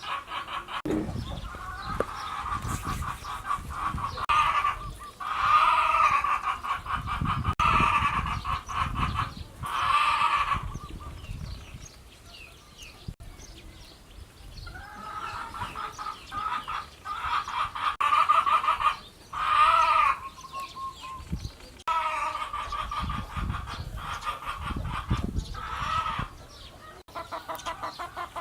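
Farm animal calling in loud, rapidly pulsed cries lasting one to three seconds each, repeated in several bouts with short pauses, over occasional low thumps.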